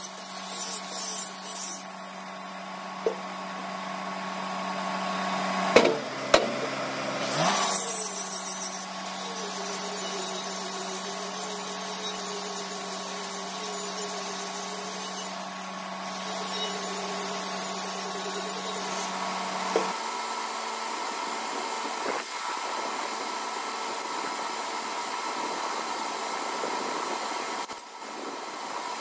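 Angle grinder running against the edge of a thick steel plate, grinding a bevel, with a steady motor whine and a few sharp clicks around six seconds in. About twenty seconds in the low whine stops and a steadier hum carries on.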